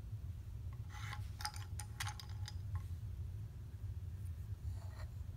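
Small wooden animal figures clicking and knocking against each other and against the wooden ark as they are lifted out and set down: a cluster of light clicks about a second in, then a few fainter ones near the end, over a steady low hum.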